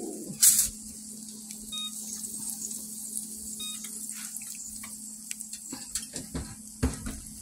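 Cornbread patties frying in hot oil in a skillet: a steady high sizzling hiss with scattered small crackles. A brief loud rustle about half a second in and a few soft knocks near the end.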